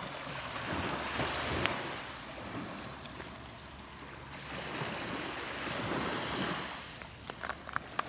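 Small waves washing up onto the beach, rising and falling in slow swells, with wind on the microphone. A few faint clicks come near the end.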